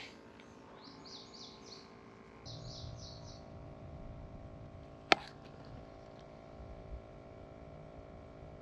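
A bird chirping in two short runs of quick notes in the first few seconds, then a single sharp click about five seconds in.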